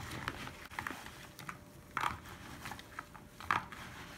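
Hands stirring a bowlful of small, partly frozen latterini (sand smelt) in milk in a plastic bowl: irregular soft clicks and wet squelches, with a couple of louder ones about two and three and a half seconds in.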